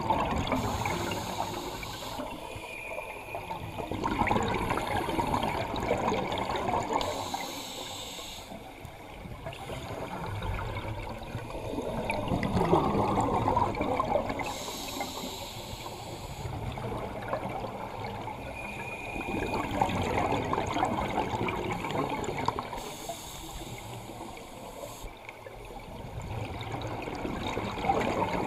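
Underwater recording of a scuba diver breathing through a regulator: gurgling exhaled bubbles and hissing inhalations that rise and fall in slow cycles a few seconds long.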